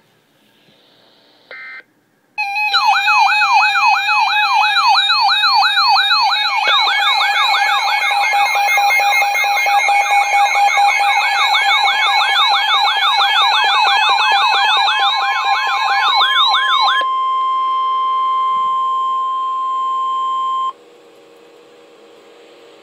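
Emergency Alert System warning tones: a short beep, then loud siren-like warbling tones sweeping up and down several times a second. About 17 seconds in they give way to a single steady tone, which cuts off suddenly about four seconds later.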